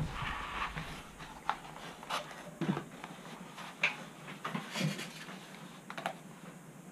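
Faint scattered clicks, taps and rustles of a foam RC flying wing being lifted off a workbench and handled.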